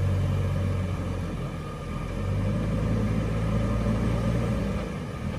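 Diesel engines of a Tata 1613 tipper truck and a JCB 3DX backhoe loader running under load as the backhoe pushes the stuck truck through the river: a steady low rumble that eases briefly about two seconds in and again near the end.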